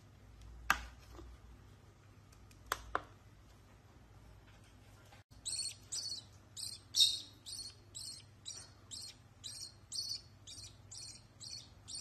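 A hand-reared baby lovebird chick cheeping in short, high, evenly repeated chirps, about two or three a second, starting about halfway through. Before that, a few light knocks as the dish is handled and set on a kitchen scale.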